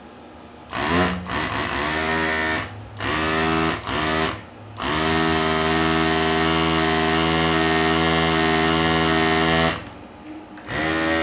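The built-in pump motor of a Soldavac VP-1800 electric desoldering gun running in bursts as the trigger is pulled. There are three short runs, then one steady run of about five seconds, each rising in pitch as the motor spins up.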